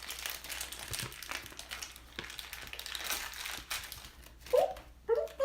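Toy packaging crinkling and rustling as it is torn and handled, with many small crackles, while a blind-bag plush toy is unwrapped. A few short voice sounds come near the end.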